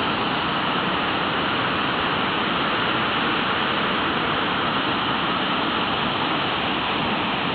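Floodwater rushing and churning in strong waves, a steady, even rushing noise.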